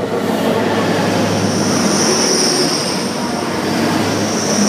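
Hull Trains Class 180 diesel multiple unit passing close at speed: a loud steady rush of wheels and engines, with a high whine coming in about two seconds in.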